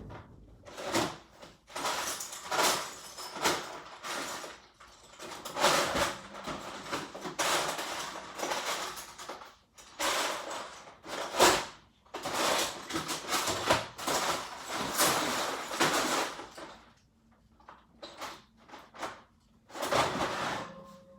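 Someone rummaging about: irregular clattering, rustling and knocking of things being moved and handled, like drawers and containers being searched, easing off near the end apart from one last burst.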